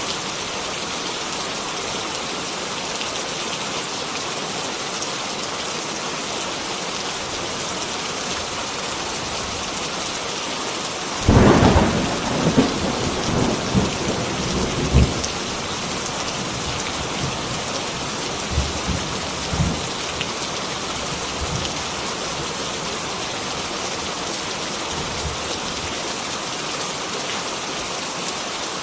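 Heavy rain falling steadily. About eleven seconds in, a sudden thunderclap breaks in, then rolls on in irregular rumbles for several seconds before fading back under the rain.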